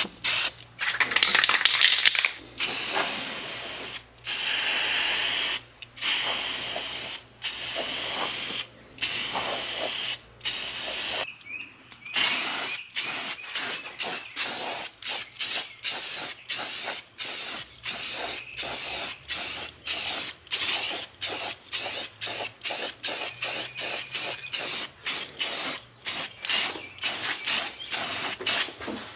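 Aerosol spray can sprayed in repeated short bursts, each a hiss that cuts off sharply. The bursts are a second or two long at first, then shorter and quicker, about one or two a second.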